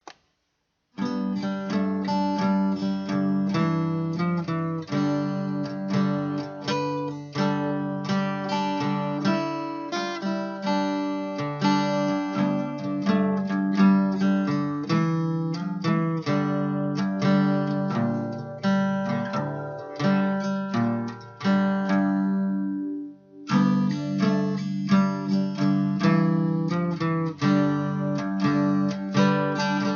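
Acoustic guitar music, strummed and picked, pausing briefly a little over 20 seconds in before it picks up again.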